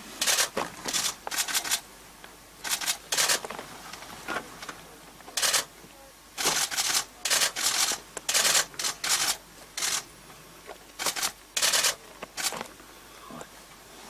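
Camera shutters firing in many short, rapid bursts.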